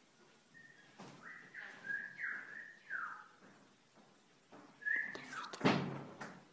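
A bird chirping: a run of short whistled notes that slide up and down, then one more chirp about five seconds in. A loud knock follows just before the end.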